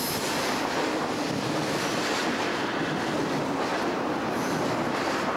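Double-stack intermodal container train rolling past, its wheels running steadily on the rails.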